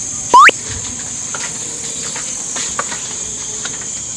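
Steady high-pitched chirring of night crickets and other insects. About half a second in, a loud, short whistle-like sound sweeps quickly upward in pitch.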